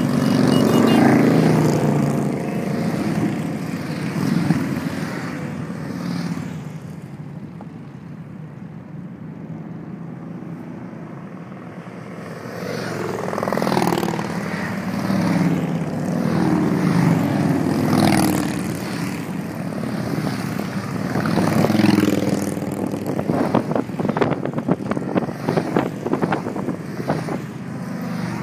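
A column of motorcycles riding past at highway speed, the engine sound swelling as each group goes by and falling back between them, with a quieter lull partway through. Near the end, a rapid crackling noise rides over the engines.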